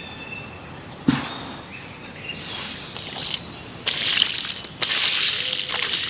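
Water splashing and sloshing in an aluminium pot with a wire handle as it is filled from the river and carried. There is a thump about a second in, and louder water pouring and spilling out of the pot over the last two seconds.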